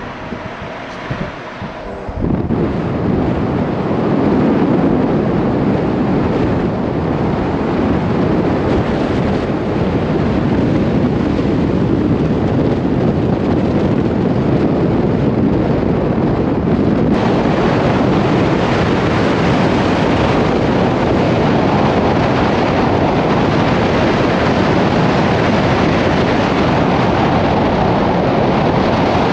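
Wind rushing hard over the microphone of a camera held at a moving car's window, mixed with road noise. It grows loud about two seconds in, then stays a steady rush.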